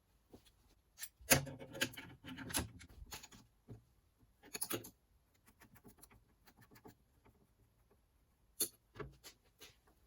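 Small metal tools and parts being handled and set in place: scattered clicks, clinks and light knocks, busiest about one to three seconds in and again near the end, with no machine running.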